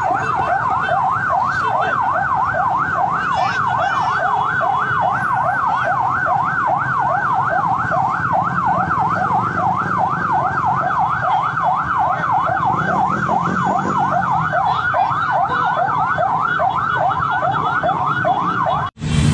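A siren in a fast yelp, its pitch sweeping up and down about two and a half times a second, with a low rumble underneath. It cuts off abruptly near the end.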